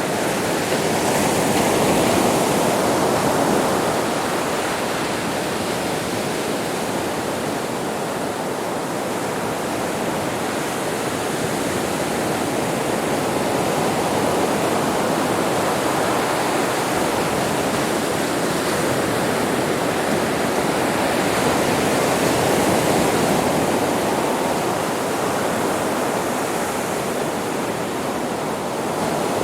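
Sea waves breaking on a beach: a continuous wash of surf that swells and eases slowly, with the wave rush loudest about two seconds in and again past the twenty-second mark.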